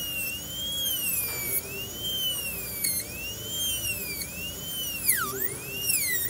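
High-speed dental handpiece whining as its diamond bur cuts dry into an acrylic practice tooth in short down-and-up strokes. The whine sags in pitch each time the bur bears on the tooth and climbs back as it is lifted, about once a second, with one deeper drop near the end.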